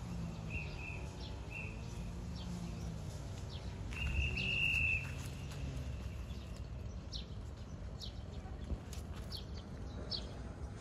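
Birds calling outdoors: short high whistled notes, then one louder held whistle about four seconds in, followed by scattered brief chirps, over a steady low background rumble.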